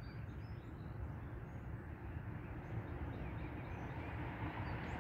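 Outdoor background: a steady low rumble with faint, scattered bird chirps over it.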